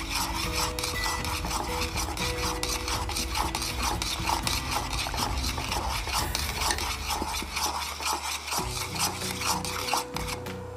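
A spoon stirring soup in a metal saucepan, scraping and clinking against the pot in quick, irregular strokes, mixing in cornstarch slurry to thicken the soup. The stirring stops about ten seconds in.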